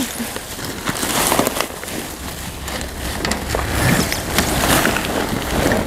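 Rummaging through trash in a dumpster: an irregular run of rustles, scrapes and knocks as boxes and discarded items are shifted and pulled at.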